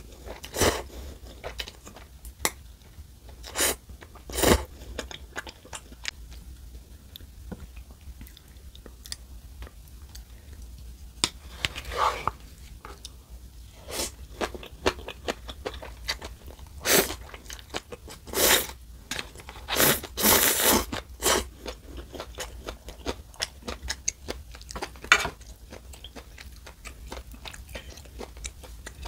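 Close-miked mouth sounds of a person eating instant ramen: noodles slurped in short, sharp bursts between wet chewing, with a run of longer slurps about two-thirds of the way through.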